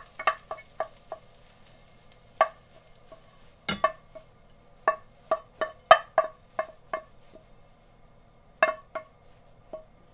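Wooden spatula knocking and scraping against a frying pan as fried rice is pushed out onto a plate, in irregular clusters of knocks that each leave the pan ringing briefly. A faint sizzle dies away in the first few seconds.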